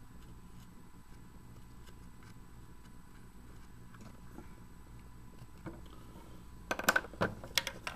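Quiet room tone for most of the time, then near the end a quick run of sharp clicks and knocks as a hard plastic camera case and plastic pipe are handled.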